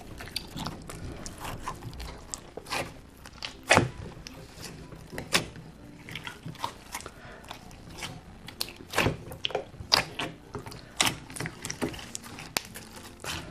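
Hands kneading and stretching a large mass of mixed slime, giving irregular wet clicks, pops and squelches.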